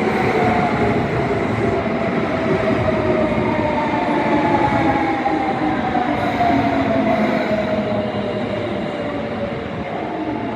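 Osaka Metro Tanimachi Line 22-series subway car slowing down: its motor whine falls steadily in pitch under braking, over rumbling rail running noise.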